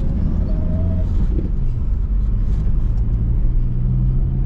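Steady low rumble of a car's engine and tyres heard from inside the cabin while driving slowly down a street.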